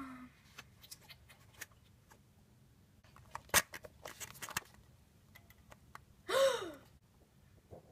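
Light clicks and taps of a small plastic toy figurine being handled and moved, clustered in the middle. Near the end comes a short high vocal sound that rises and then falls in pitch.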